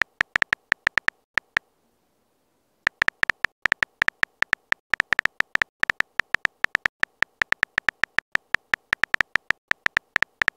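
Phone keyboard typing sound effect: a short tick for each letter typed, about five a second, with a pause of about a second and a half near the start.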